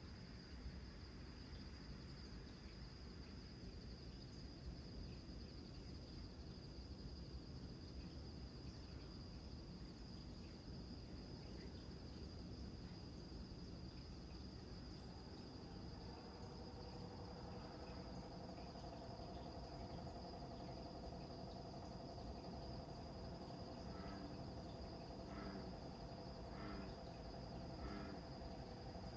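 Crickets chirring steadily over a low rumble of surf. About halfway through a steady droning tone joins in, and near the end a run of calls repeats about every second and a half.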